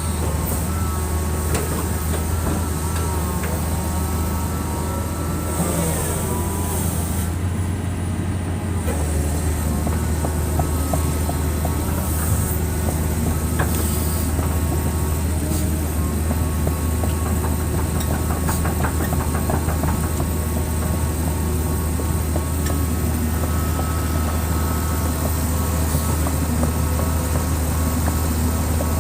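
Excavator's diesel engine running steadily with a constant low drone.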